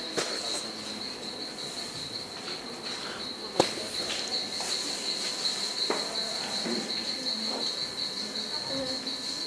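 A steady, high-pitched cricket trill, with a sharp knock about three and a half seconds in.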